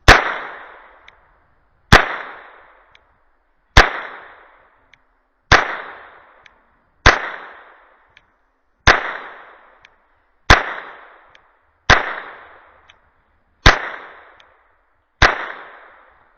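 .22 LR pistol firing ten Armscor 36-grain hollow-point rounds, one shot every second and a half to two seconds, each crack trailing off in a short echo with a faint tick about a second after it.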